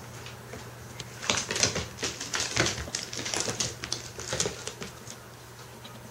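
A cat's claws and paws clattering on a hardwood floor as it scrabbles and pounces, a quick irregular run of clicks and taps from about a second in until about four and a half seconds in.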